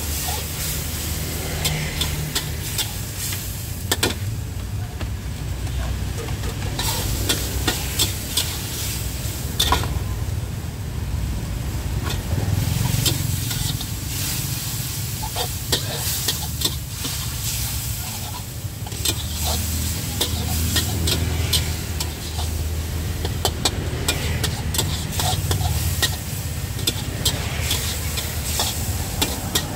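Metal spatula scraping and clacking against a wok in quick, irregular strokes as minced pork with holy basil sizzles, stir-fried over high heat.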